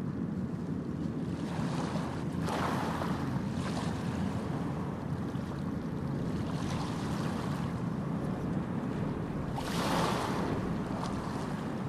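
Outdoor wind and water noise: a steady low rushing hiss with two louder surges, about two and a half seconds in and again near ten seconds.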